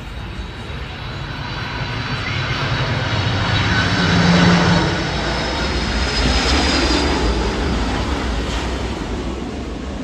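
Engines of a McDonnell Douglas MD-11 trijet on landing approach passing low overhead: a jet roar that swells to a peak about halfway through and then slowly fades, with a faint high whine above it.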